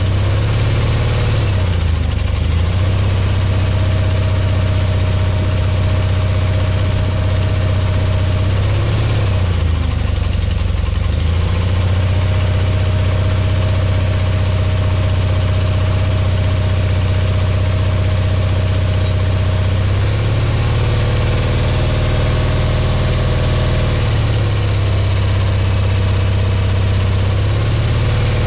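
A Grove Stevedore mobile crane's Onan propane engine running steadily while the crane hoists a heavy load. Its speed dips and recovers several times.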